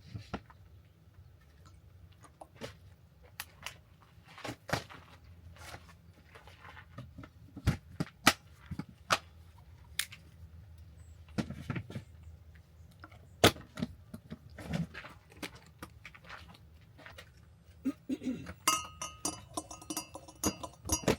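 Irregular sharp clicks and knocks, spaced a second or so apart, coming thicker with some short high tones in the last few seconds.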